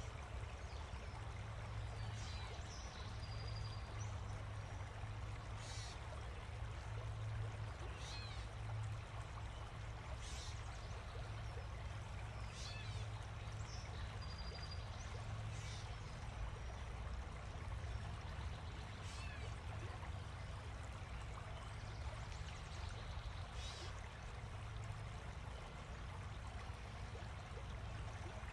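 Steady outdoor ambient noise: an even rushing sound over a low hum, with short high chirps every few seconds.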